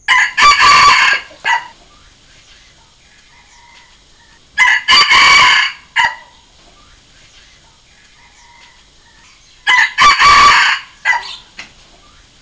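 Red junglefowl cock crowing three times, about five seconds apart, each crow a short broken call lasting about a second and a half. It is a territorial crow of the kind played as a decoy call to draw wild junglefowl cocks into answering.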